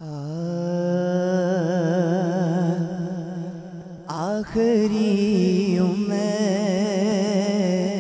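Male naat reciter singing a devotional Urdu naat unaccompanied, holding long notes with a strong wavering vibrato, over a steady low drone; a new sung phrase begins about four seconds in.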